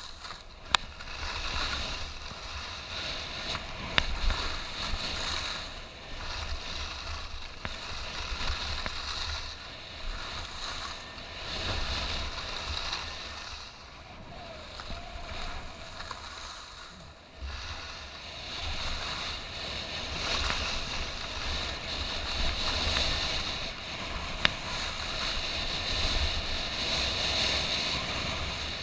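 Skis sliding and carving over freshly groomed corduroy snow, a hissing swish that rises and falls with the turns, with wind rumbling on the microphone. A few sharp clicks stand out.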